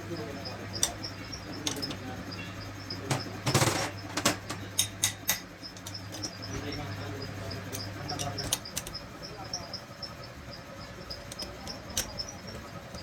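Gearbox repair work: sharp metallic clicks and knocks of tools and parts, with a short hissing burst a few seconds in, over a steady motor hum that cuts out about eight seconds in. Rapid high insect chirping runs underneath.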